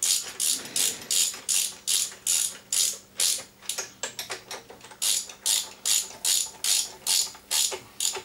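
Ratchet spanner clicking in quick back-and-forth strokes, about three clicks a second, as the air filter box nuts on a Honda EX650 generator's carburettor are tightened. The clicks go weaker for about a second midway, then carry on.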